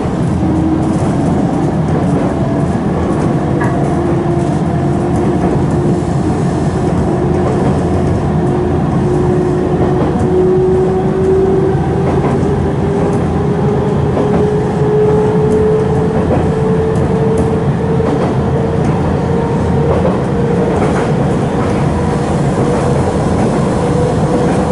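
Nankai 2300 series electric train heard from inside the passenger car while running: a steady rumble of wheels on rail, with an electric motor whine climbing slowly in pitch as the train gathers speed.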